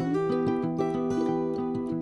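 Background music of a plucked acoustic guitar, its notes changing every fraction of a second.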